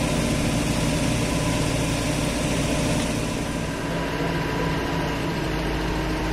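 Truck-mounted mobile crane's diesel engine running steadily while it holds and lifts a heavy load. The high hiss drops away about four seconds in.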